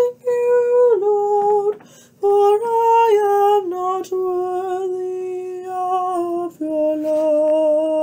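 A woman singing a slow gospel song solo, in long held notes that step down in pitch, with short breaks for breath.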